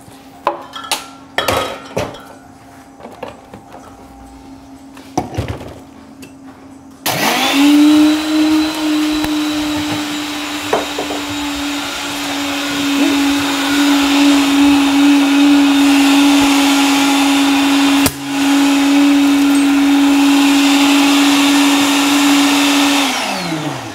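A few knocks and clinks, then a bar blender starts about seven seconds in and runs steadily, blending crushed ice, orange sorbet, cranberry juice and vodka. The motor cuts out for a moment once and restarts, then spins down with a falling pitch near the end.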